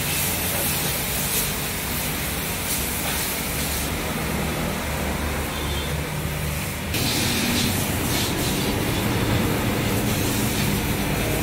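Water spray hissing against a car's underside over a steady low machine hum, growing louder about seven seconds in.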